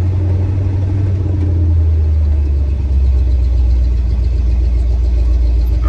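Classic Ford pickup truck driving, heard from inside the cab: a steady low engine and road rumble that drops a little in pitch about three seconds in.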